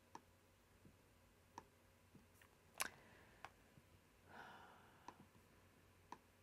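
Faint, scattered computer mouse clicks, about six spread irregularly over several seconds, the loudest near the middle, with a short soft rustle a little later, against near silence.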